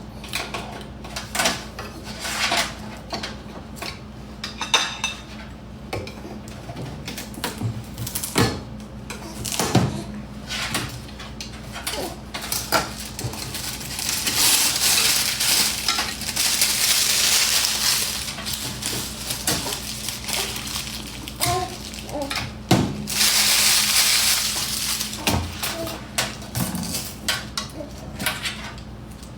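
Kitchen clatter: pots, pans and metal utensils knocking and clinking on and off, with two longer stretches of steady hiss, one about halfway through lasting several seconds and a shorter one later.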